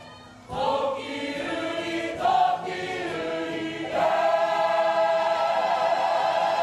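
Kapa haka group singing together as the poi item begins. Voices come in about half a second in, and from about four seconds they hold a long chord.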